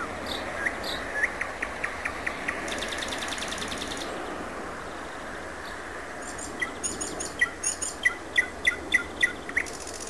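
Common nightingale singing: a run of short repeated notes, then a very fast, high trill. After a pause of about two seconds comes a louder series of repeated notes, about three a second.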